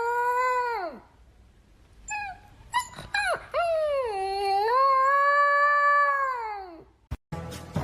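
A dog howling: one long howl that drops away about a second in, a few short yips, then a second long howl that falls off near the end. Music comes in at the very end.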